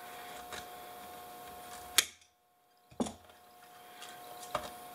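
Small clicks and taps of hand tools and fingers working the plastic frame of an induction cooktop's copper coil, with one sharp snap about two seconds in. After the snap the sound drops out completely for under a second, over a faint steady hum.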